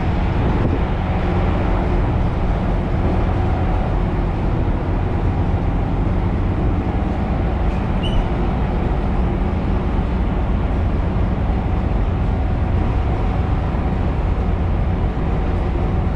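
A small passenger ferry's engine running underway: a steady low rumble with a faint even hum, under a haze of wind and water noise on the open deck.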